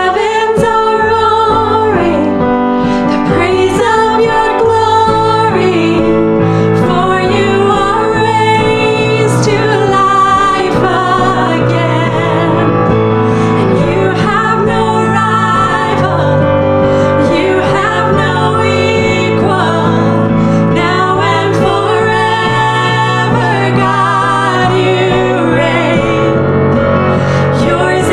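Two women singing a slow worship song together, accompanied by sustained chords on a digital piano.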